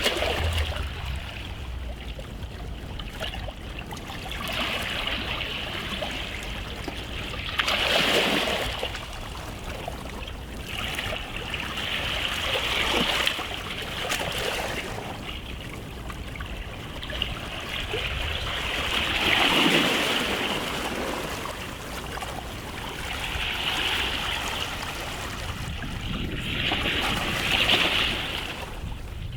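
Small sea waves washing onto a beach, a rush of water that swells and falls back every few seconds, with the biggest surges about a quarter of the way in, about two-thirds of the way in and near the end.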